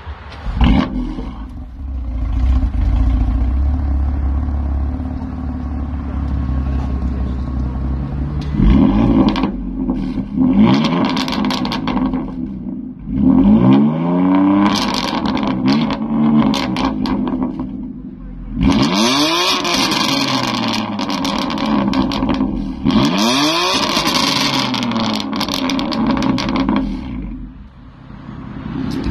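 BMW M4's twin-turbo straight-six, fitted with straight-pipe exhaust, free-revved repeatedly while parked. Loud rev blips rise and fall in pitch in several clusters, with the engine settling back to idle in between.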